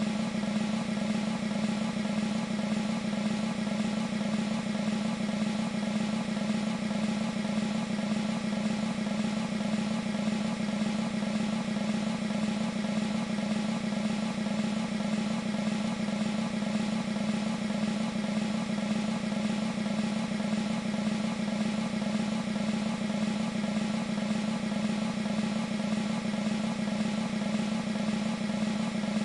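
Sampled military snare drum roll from an E-mu Proteus 2 sound module: one sustained, unbroken roll at an even level.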